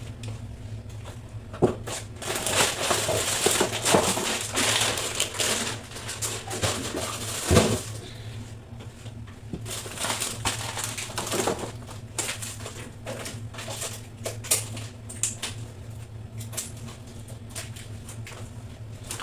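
Household cleaning by hand: rubbing and scrubbing for several seconds, then scattered clicks, knocks and clatters of items being handled, over a steady low hum.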